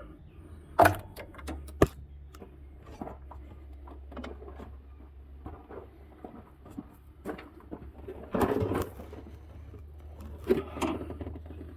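A screwdriver clicks and scrapes against the engine as a brittle, cracking camshaft actuator seal is levered out. Two sharp clicks come in the first two seconds, then scattered small clicks, and short scraping rustles about eight and ten and a half seconds in.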